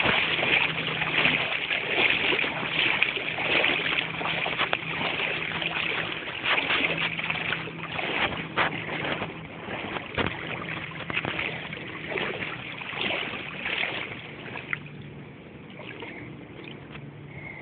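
Rushing floodwater of the swollen Kenai River, a dense hiss and churn with wind buffeting the microphone, and a faint low hum that comes and goes. It grows quieter over the last few seconds.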